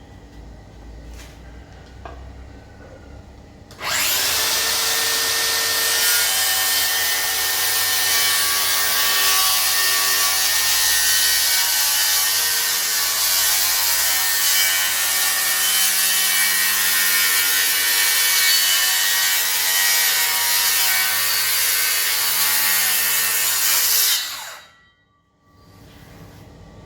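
DeWalt DCS578 cordless circular saw cutting through wood: it starts suddenly about four seconds in, cuts steadily for about twenty seconds, then stops and spins down.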